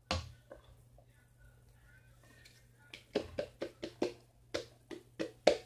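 A utensil knocking against a bowl: one sharp knock at the start, then from about halfway a quick run of knocks, roughly four a second, the sound of cornstarch and water being stirred into oobleck.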